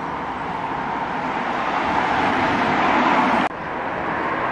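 A passing car on the street, its noise swelling steadily louder for about three seconds and then cutting off suddenly, followed by quieter street traffic noise.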